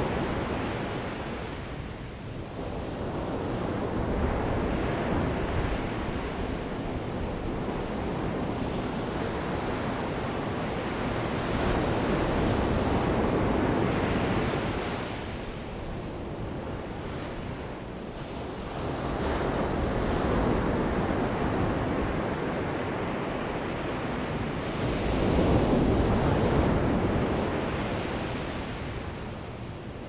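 Sea surf breaking and washing up a sandy beach, swelling and fading in slow surges every several seconds.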